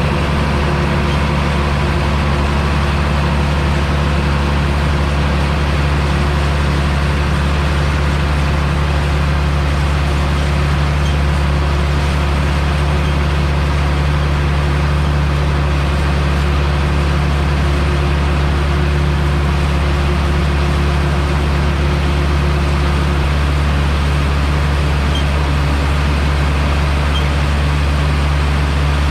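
Heavy diesel engine of harvest machinery, most likely the tractor pulling the grain cart, running at a steady speed: a constant low drone that does not change pitch or level.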